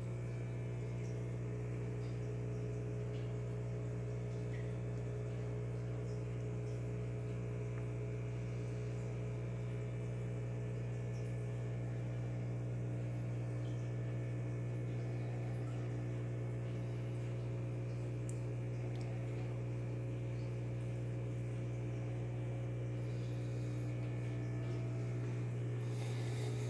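Steady electrical hum of running aquarium equipment, a constant low drone with a few fainter steady overtones, and a brief rush of hiss near the end.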